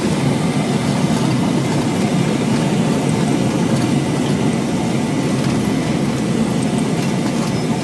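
Steady low rumble inside a Boeing 727-200 cockpit as the jet rolls along the runway after touchdown: its Pratt & Whitney JT8D engines, airflow and runway noise, with a faint steady high tone above it.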